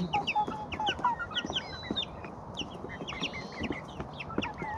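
Young chickens peeping: a rapid string of short, high, falling peeps, with a few low clucks in the first second.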